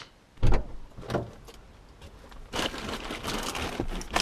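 Two dull thumps about half a second and a second in, then a few seconds of rustling handling noise with light knocks.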